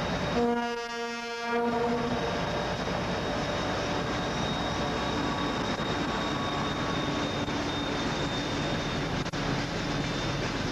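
Horn of ST44 diesel locomotives, one held tone lasting about a second and a half just after the start. It is followed by the steady running of the locomotives' two-stroke 14D40 diesel engines and the rumble of a tank-wagon freight train rolling past.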